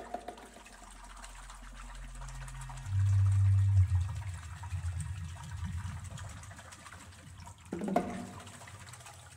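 Contemporary music for percussion and tape: a low, water-like rumble that swells, is loudest about three seconds in, then thins into a grainy low texture. A single struck sound rings out near the end.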